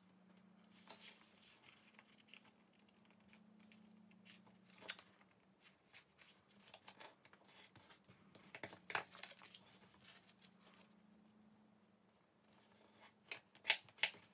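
A small sheet of designer paper being folded and creased by hand, with irregular rustles and short scrapes. Near the end a bone folder is drawn along the fold in a few quick, louder strokes. A faint steady low hum runs underneath.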